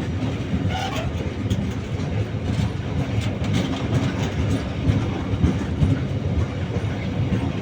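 Freight train of loaded BOXN open wagons rolling past: a steady low rumble of steel wheels on rail, with scattered clicks as wheels cross rail joints.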